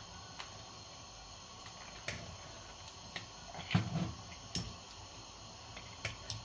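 A metal ladle working in a steel cooking pot: a few light, scattered clicks and knocks, with a duller knock a little under four seconds in.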